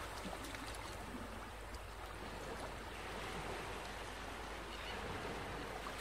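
Steady wash of ocean surf, a rushing sound that swells slightly and eases back.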